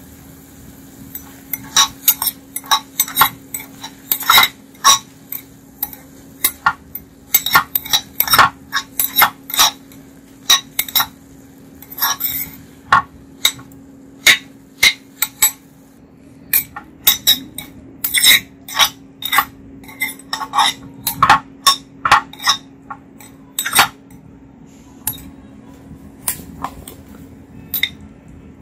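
A metal slotted spoon clinks and scrapes against the inside of a black ceramic pot while pork pieces are stirred, in quick irregular knocks that thin out near the end. A steady low hum runs underneath.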